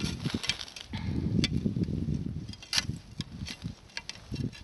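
Hand-hauling a line up through a hole in the ice: snow crunching and clothing rustling, with a string of short sharp clicks and knocks, while a hooked fish is pulled up.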